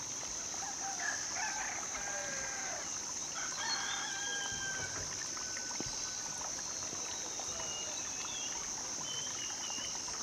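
A rooster crowing: two long calls in the first half, with fainter high chirps later, over a steady high-pitched buzz.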